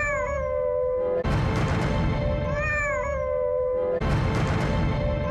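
Domestic cat meowing, a plaintive crying call that rises then falls in pitch and trails off in a long held note. The identical cry repeats about every two and a half to three seconds over a steady background noise.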